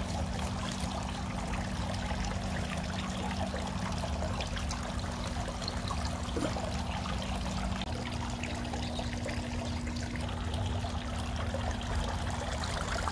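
Three-tier garden water fountain trickling and splashing steadily.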